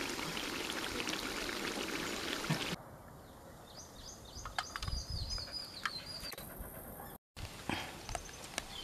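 Chicken gravy sizzling and bubbling in the pan, then after a cut, birds chirping, with sharp clinks of a steel spoon against steel plates as the gravy is served.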